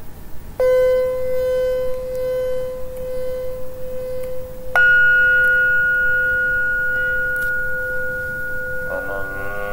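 A meditation bell struck twice, about four seconds apart, each stroke ringing on in a long steady tone, the second adding a higher ringing note. A voice comes in near the end.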